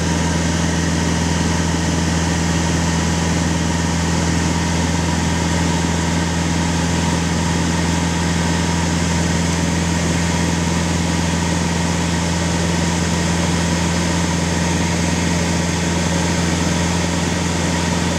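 Flight noise inside the cabin of a small propeller plane: the engine and propeller run with a steady low drone over an even rush of air.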